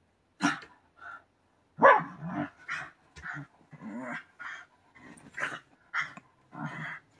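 A white Shiba Inu giving short barks and growls, about a dozen in quick succession; the loudest comes about two seconds in.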